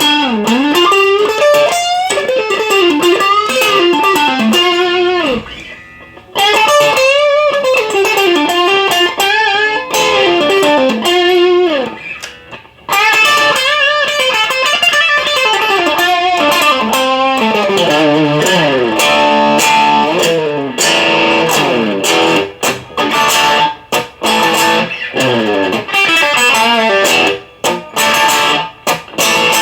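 Electric guitar played through a Marshall DSL1 amplifier: fast lead runs that sweep up and down the neck, with two short breaks early on. Later it turns to quicker, choppy phrases with brief stops between the notes.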